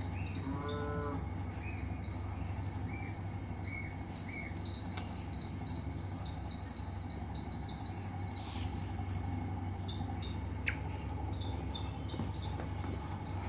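Pet otter giving a few short, high chirping squeaks in the first few seconds while it play-bites a hand, with one more quick falling squeak near the end, over a steady low hum.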